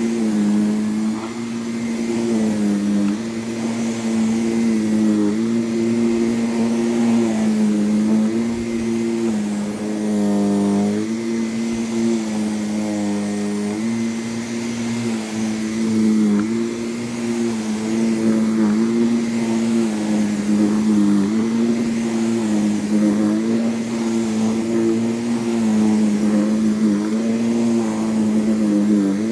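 Vacuum cleaner running steadily over a wool rug, its motor humming with a pitch that dips slightly and recovers every second or two, and wavers briefly about ten seconds in.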